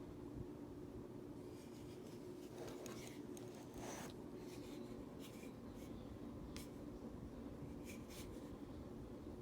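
Faint handling noise: quiet rubbing and a few light clicks, scattered through the middle, over a low steady hum.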